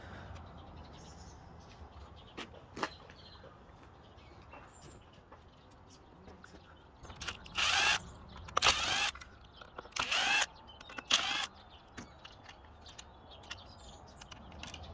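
Cordless power driver with a socket bit running in four short bursts, each under a second, undoing the bolts of a pressure washer's plastic housing, with a thin high whine in each run. Faint clicks of parts being handled come before.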